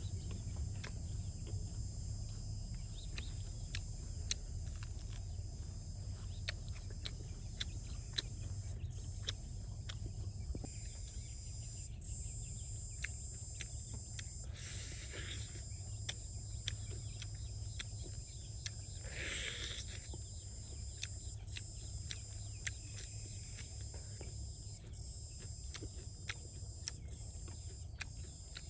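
A steady, high-pitched chorus of insects, with a low rumble underneath and many scattered sharp clicks. Two brief bird calls come about halfway through.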